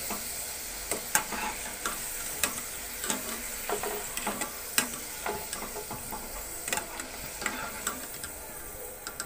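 Potato fries sizzling in hot oil in a deep pan, with frequent sharp clicks as a wire-mesh spider strainer lifts them out at the end of their first, light fry.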